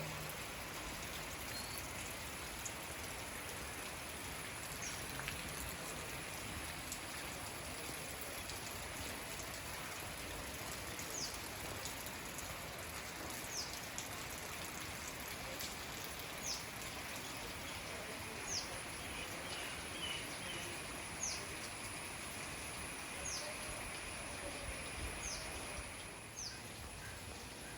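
A steady water hiss, like rain or a stream. From about eleven seconds in, a bird gives short, high, falling chirps about every two seconds.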